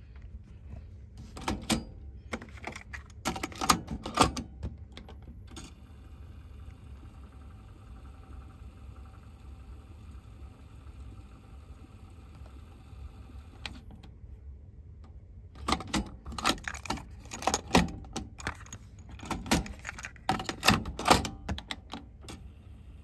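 Sony TC-W550 dual cassette deck being worked by hand: a cluster of sharp clicks and clunks from its transport buttons and cassette mechanism about a second and a half in, and another from about fifteen seconds in. Between the two clusters a faint steady whir runs while the tape transport plays.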